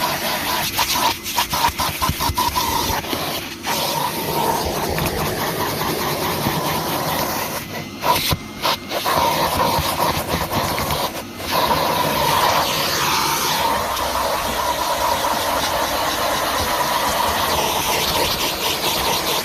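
Numatic Henry Plus HVR200P vacuum cleaner running steadily, a rushing hiss of suction with a whine on top as the nozzle works over the car, dipping briefly a few times around the middle.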